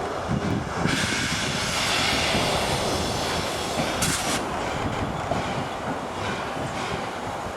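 Steam railway train moving slowly, with a loud hiss starting about a second in and easing off after a couple of seconds, then a short sharp hiss about four seconds in.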